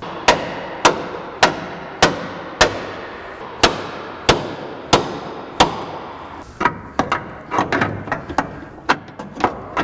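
Hammer blows ringing on the steel steering linkage of a GMT400 Chevy truck, knocking a tie-rod end loose after its nut is off. About nine hard strikes come roughly every 0.6 s, then lighter, quicker taps near the end.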